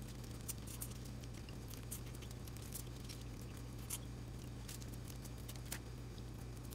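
Shells of boiled shrimp and crab being peeled and cracked by hand over aluminium foil: scattered small clicks and crackles, the sharpest about four seconds in and near six seconds. A steady low hum runs underneath.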